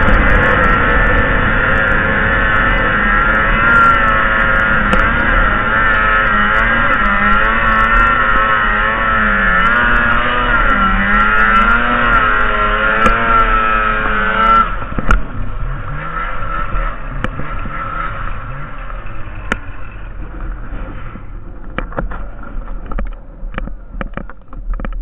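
Snowmobile engine running hard on a steep climb, its pitch wavering up and down with the throttle. It drops away sharply about fifteen seconds in and fades out over the next few seconds. Scattered clicks and knocks follow.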